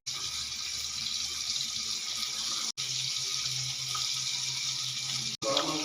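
Chicken pieces deep-frying in hot oil with a steady sizzle, broken twice by brief cuts.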